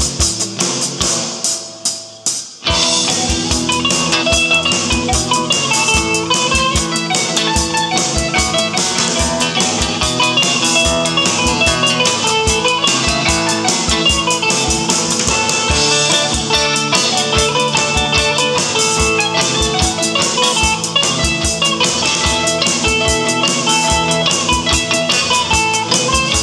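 A live band playing an instrumental passage on electric guitar, archtop guitar, drum kit, mandolin and three-string cigar box guitar, over a steady kick-drum beat. Just after the start the band drops away for about two seconds, then comes back in together.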